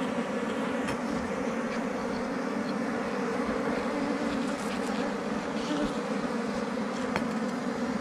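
A colony of honeybees buzzing steadily around their exposed comb as it is disturbed by a knife, a dense continuous drone with a couple of faint clicks.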